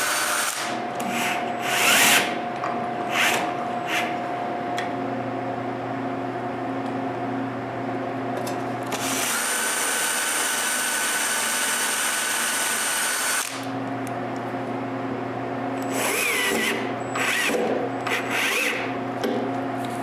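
Power drill running in long stretches, drilling a pilot hole into wood and driving a screw. The motor's sound changes between about nine and thirteen seconds in, and short clicks and knocks come between the runs near the start and the end.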